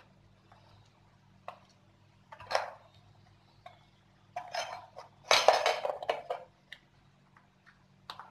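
Steel spoon scraping and clinking against a plastic plate and a small metal bowl while chopped onion is scooped into the eggs. Scattered taps, with short scraping bursts about two and a half seconds in and a longer one about five seconds in, over a faint steady hum.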